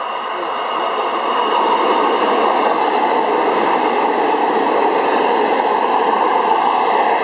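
Air-conditioned diesel railcar train passing close by on the adjacent track. The rush of its engines and wheels grows over the first second or so, then holds steady and loud.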